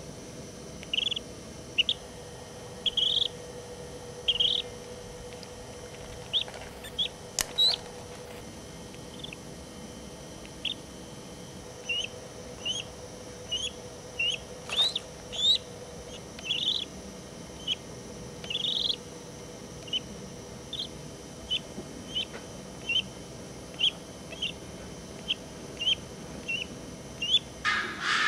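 Newly hatched common crane chick peeping: short high calls, some rising, about one a second, over a steady low hum. A few sharp clicks fall in the middle, and a burst of noise comes right at the end.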